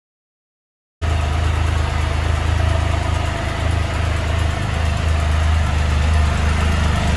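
Can-Am Spyder F3-S's Rotax 1330 three-cylinder engine idling steadily, cutting in abruptly about a second in.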